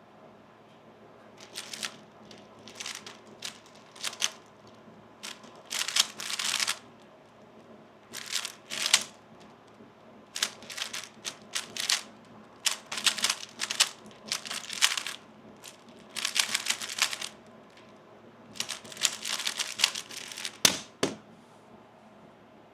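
3x3 speedcube being turned fast during a timed solve: runs of rapid plastic clicking and rattling broken by short pauses, ending in a single sharp knock near the end.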